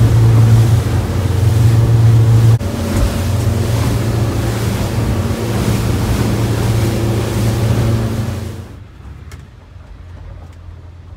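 Motorboat running at speed, heard from inside the cabin: a steady engine drone with wind and water rushing over the hull. It cuts off abruptly near the end, leaving a much quieter low, steady hum with a few faint clicks.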